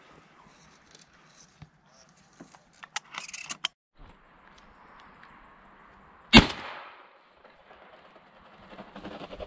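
A single loud 12-gauge shotgun shot from a Beretta A391 Xtrema2 semi-automatic, about six and a half seconds in, with a short ringing tail. A few sharp clicks and rustles come a few seconds before it.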